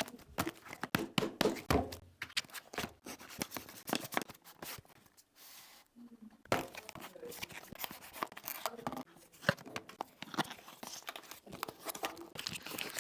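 Packaging of a power bank being handled and opened by hand: irregular rustling, tearing and crinkling with many small clicks and knocks.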